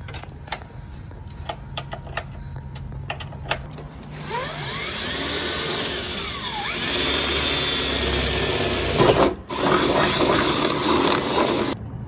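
A few light clicks of small tools being handled. Then, from about four seconds in, a cordless drill bores into a car's front fender: the motor whine sweeps up and down as it starts, then runs steadily. It breaks off briefly about two-thirds of the way through, runs again, and cuts off near the end.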